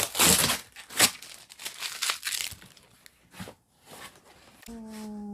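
Parcel packaging being torn open and crinkled by hand: a run of rough tearing and rustling strokes in the first two and a half seconds, then lighter rustles. A short steady hum near the end.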